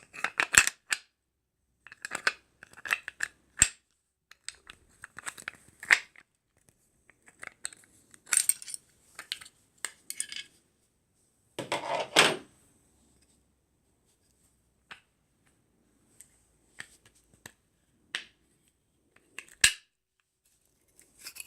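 Ruger 10/22 bolt and receiver parts clicking and scraping as the bolt is pushed and worked into the receiver, a stubborn fit on reassembly. Scattered sharp clicks, with a few longer scrapes about a third and about half of the way through.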